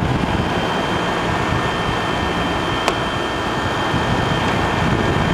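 1996 Whirlpool Coolerator 7000 BTU window air conditioner (model AR0700XA0) running on cool, with the fan blowing steadily and a faint steady whine over it. A single click about three seconds in.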